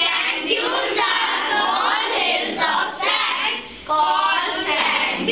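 A class of children's voices together in unison, in phrases with short breaks between them.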